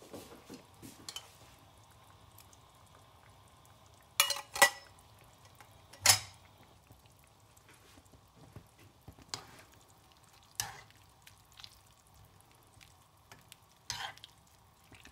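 Vegetable curry in coconut milk simmering faintly in a frying pan, broken by a few sharp clinks and knocks of kitchen utensils, the loudest about four to six seconds in. Near the end a spoon knocks against the pan as the curry is stirred.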